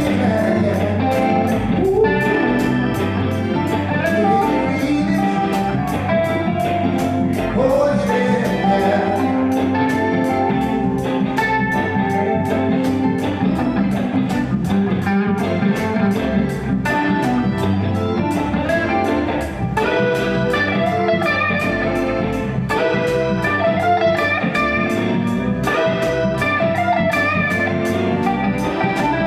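Reggae band playing live through a sound check: electric guitar over a steady beat, mostly instrumental.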